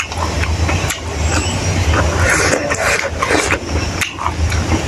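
Close-miked eating sounds: wet chewing and mouth smacks, with fingers squishing and mixing rice on a metal plate, many short sharp clicks over a steady low hum.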